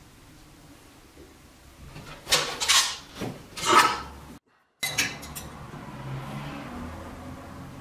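Metal tools handled at a bench vise: a few clinks and scrapes of metal on metal around the middle, then a few short clicks.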